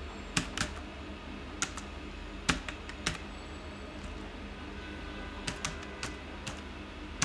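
Computer keyboard keys tapped in short irregular bursts with pauses between, as a word is typed letter by letter, over a faint steady low hum.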